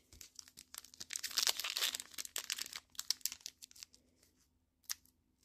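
Foil wrapper of a Pokémon trading card booster pack crinkling and tearing as it is ripped open by hand, loudest in the first two seconds and dying away after about three and a half seconds, with a couple of faint clicks near the end.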